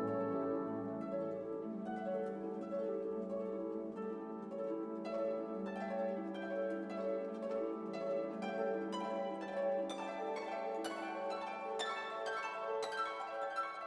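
Background music: orchestral music with harp and plucked string notes over held lower strings, the plucked notes growing busier partway through.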